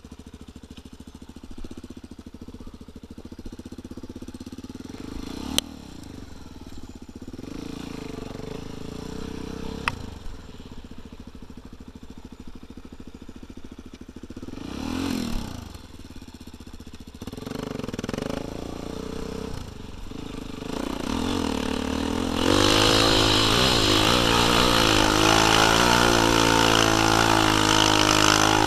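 Dirt bike engine running at low revs with a few brief rev swells and two sharp clicks. About 22 seconds in the throttle opens and the engine runs loud and hard under load on a steep loose hill climb, its pitch rising and falling with the throttle.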